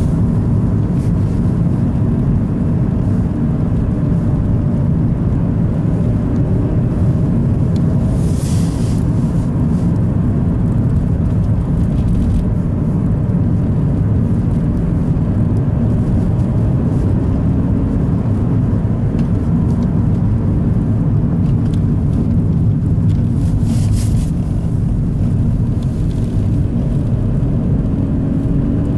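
Car driving along a snowy road, heard from inside the cabin: a steady low engine and tyre rumble, with two short hissy flares, about eight seconds in and near the end.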